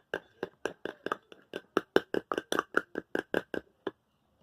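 Quick, even tapping against a glass jar, about five taps a second, with a slight glassy ring on each tap, stopping about four seconds in.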